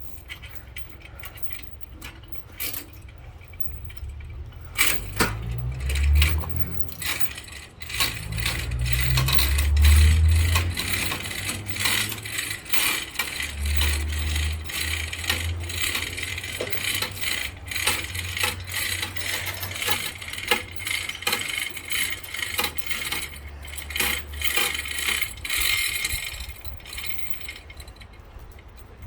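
Chain and metal hardware rattling and clanking over an uneven low rumble as a heavy log is lowered on a chain hook. The rumble swells twice in the first half, then runs on more evenly before fading near the end.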